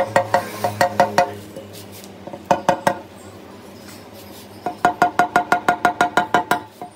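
Rubber mallet tapping a 10 mm clear glass sheet along a scored circle, each tap leaving the glass ringing, to run the score so the round breaks free. The taps come in short runs with a pause in the middle, then a fast, even run of about five taps a second near the end.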